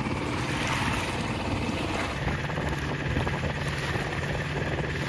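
Small outboard motor of a dinghy running steadily, under a constant rush of wind and water. A low steady engine hum becomes more distinct about two seconds in.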